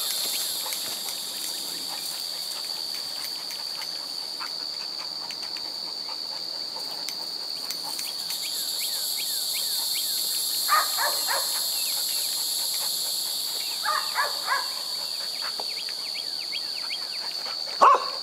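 Steady high-pitched chorus of insects buzzing in the surrounding brush. A dog gives two short bursts of yips, about eleven and fourteen seconds in.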